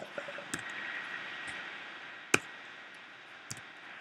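A few sharp clicks and taps of a stylus on a pen tablet, the loudest a little past halfway, over a soft hiss.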